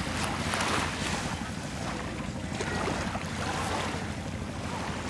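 Wind buffeting the microphone over small waves washing onto a shallow sandy shore, the wash swelling and easing a few times.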